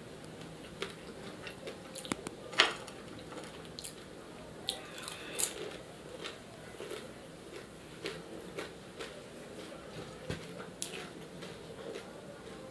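Chewing crispy fried potato roll samosa, with wet mouth sounds and scattered short crunches, the loudest about two and a half seconds in.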